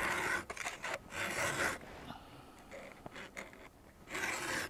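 Stihl 2-in-1 file guide pushed across chainsaw chain cutters: about four rasping forward file strokes, each under a second, with short pauses between them, sharpening a dull chain.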